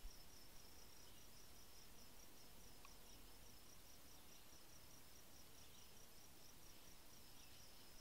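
Faint, high insect trill, a chirp pulsing several times a second, over quiet outdoor background hiss, with a few faint short chirps now and then.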